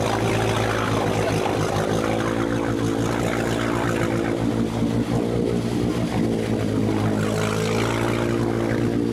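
Engine of a modified 4x4 off-road truck running hard at steady revs as it wades through deep water, a continuous even drone; it is under heavy throttle, blowing thick black exhaust smoke.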